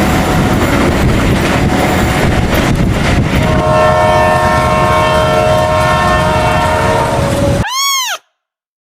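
A train passing close by with a loud rumble and rail noise; about three and a half seconds in, the locomotive's horn sounds a steady multi-note chord for about four seconds and cuts off. Near the end, after a brief silence, a short cat meow rises and falls in pitch.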